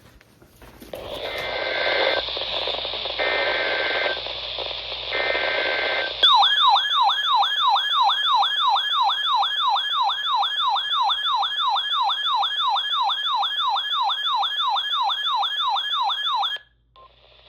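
Weather radio static carrying three short screeching bursts of the SAME digital alert header. These are followed by a loud warbling alert siren, rising and falling about three times a second for about ten seconds, that cuts off abruptly. This is the tone sequence that announces a new weather warning coming over NOAA Weather Radio.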